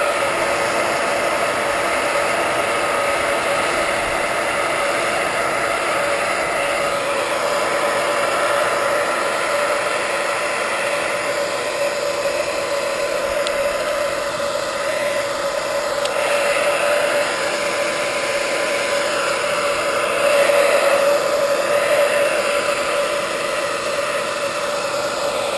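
Handheld hot-air blower running steadily, a rush of blown air over a constant motor hum, heating the tank pad as it is laid on.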